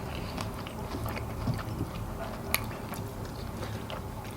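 A person chewing fried chicken wings close to the microphone, with soft mouth noises and scattered small crunches, and one sharper crack about two and a half seconds in.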